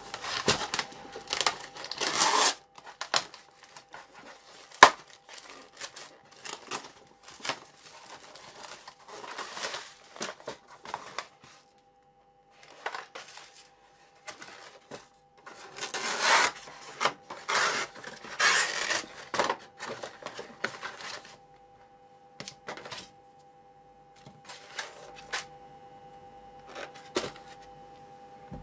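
Plastic shrink-wrap and paper lid of an instant cup yakisoba crinkling and tearing as it is unwrapped and opened, in several bouts of rustling with handling clicks and one sharp knock, over a faint steady hum.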